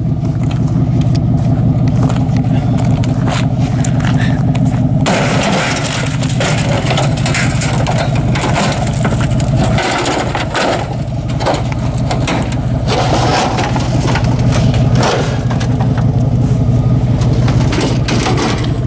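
Engine of a 1989 Ford F-150 pickup running steadily, with irregular clanks and rattles over it.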